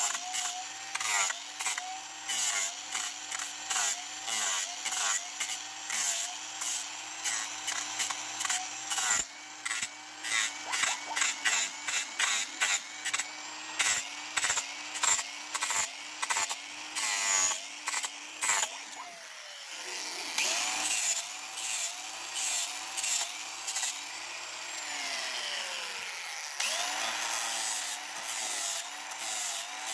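Cordless angle grinder sanding a wooden board. Its motor whine dips in pitch each time the disc is pressed into the wood and then recovers. The first two-thirds are rough, choppy scraping; the rest is steadier grinding.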